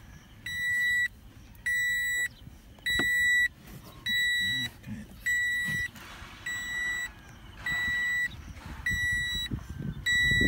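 A car's interior warning buzzer beeping in a steady rhythm: a single high tone about half a second long, repeating roughly every 1.2 seconds, about nine times. Faint knocks and rustles from plastic dashboard trim and wiring being handled sit underneath.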